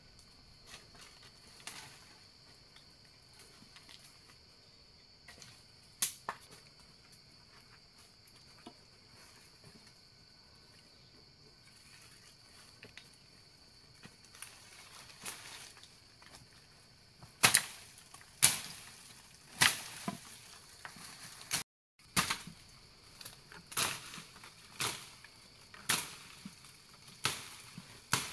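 A steady high insect drone, with a single sharp knock early on. From a little past halfway, a hand tool strikes repeatedly, about one sharp blow a second, each with a short ringing decay.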